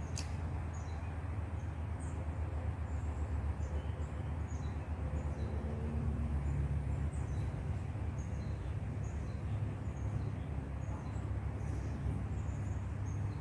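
Outdoor ambience: a steady low rumble with scattered faint, short bird chirps throughout.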